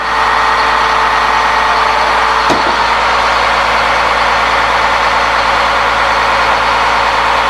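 A truck engine idling steadily, with a brief knock about two and a half seconds in.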